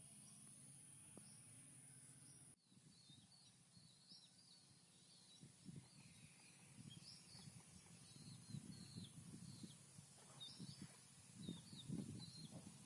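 Faint outdoor ambience with small birds chirping in short, repeated calls. Low rustling bumps grow louder toward the end. The first couple of seconds are only a steady low hum and hiss, which stop abruptly at a cut.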